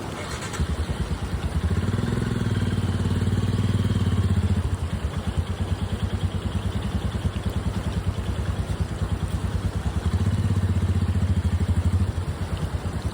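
Royal Enfield Himalayan's single-cylinder engine running on the move, with evenly spaced firing pulses. It gets louder under throttle from about two seconds in and again about ten seconds in, easing off in between.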